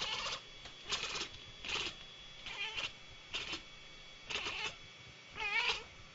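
A cat meowing over and over, about once a second, with one longer, wavering call near the end.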